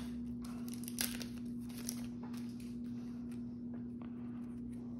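A Yu-Gi-Oh booster pack's foil wrapper being torn open and crinkled, with a few sharp crackles in the first couple of seconds, then softer rustling as the cards are slid out and handled. A steady low hum runs underneath.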